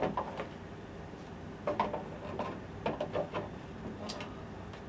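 Plastic grow tray of an Aspara hydroponic smart grower being set down and pushed into place on its base: scattered light knocks and clicks, most between about two and four seconds in.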